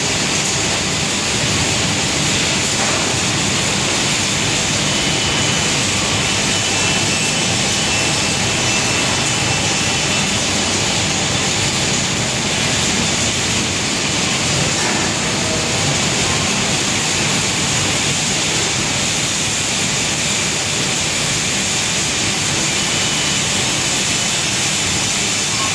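Dust extraction plant machinery running: a loud, steady, even rushing noise with faint high whines, unchanging throughout.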